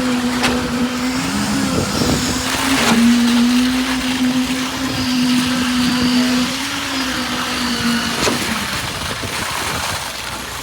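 Concrete vibrator motor running with a steady high whine that dips briefly in pitch about two seconds in and cuts out near the end, over scattered knocks of site work.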